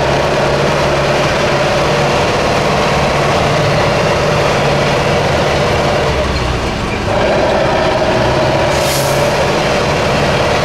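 Six-wheel-drive trial truck's engine running hard as the truck climbs a dirt bank, steady apart from a brief drop about two-thirds of the way through. A short hiss sounds near the end.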